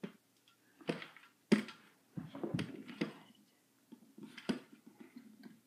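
Handling noise from a camera being fiddled with on an old tripod: a series of sharp clicks and knocks with some clattering between them, the loudest about a second and a half in and again near the end.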